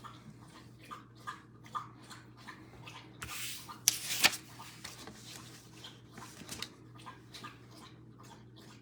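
Dog lapping water, a run of small wet laps, with one louder noisy burst lasting about a second a little over three seconds in.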